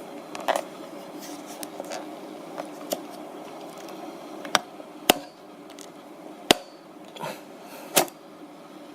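Sharp clicks and knocks of hard parts being handled, about half a dozen spread over several seconds, during work on a Retina 5K iMac's rear memory compartment, over a steady low hum.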